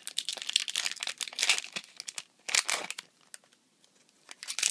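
Foil wrapper of a Pokémon trading-card booster pack being torn open and crinkled by hand. It comes in quick bursts of crackly rustling, busiest in the first three seconds, with a short lull before a last burst near the end.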